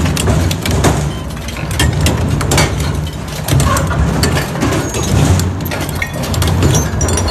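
Twin-shaft shredder running, its counter-rotating hooked cutter discs turning with a steady low drone under a dense clatter of cracks and clinks as they catch and bend metal rods.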